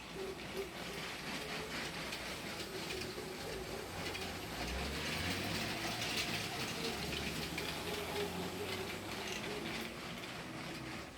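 Lego freight train running on plastic track, its small electric motor whirring and its wheels clattering over the rails. It grows louder a few seconds in and fades slightly near the end, as it passes closer and moves away.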